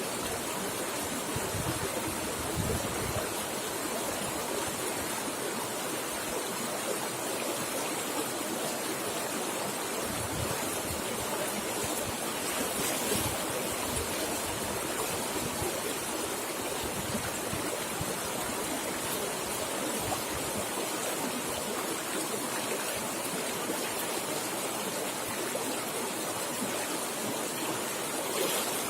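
Swift river water rushing in a steady, unbroken stream.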